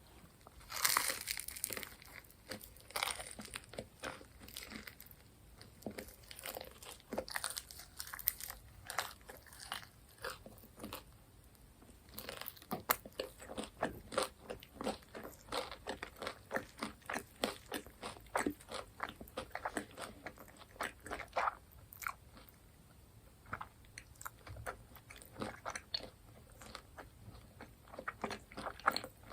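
Close-miked eating: a crunchy bite about a second in, then steady crisp crunching and chewing of cheese-seasoned fried chicken or cheese balls.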